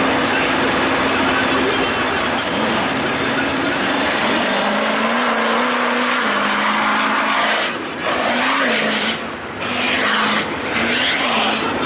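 Duramax V8 turbodiesel in a mud-racing mega truck at full throttle, launching and tearing through a mud pit, its engine note wavering. A faint high whine rises over the first couple of seconds, and the noise dips briefly a few times near the end.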